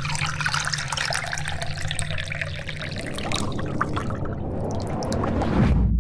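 Liquid poured from a glass bottle into a shot glass, a continuous splashing trickle that cuts off abruptly near the end. A deep low rumble takes over in its place.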